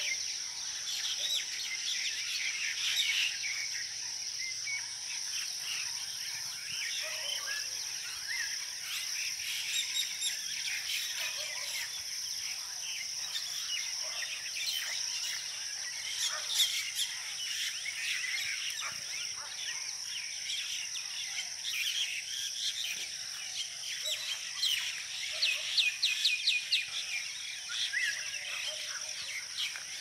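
Many birds calling together in the tree canopy, a dense chorus of overlapping chirps, with a louder run of rapid repeated notes near the end. A steady high insect drone runs underneath.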